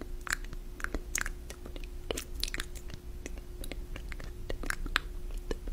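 Close-microphone ASMR trigger sounds: irregular, crisp clicks and crackles, several a second, over a faint steady hum.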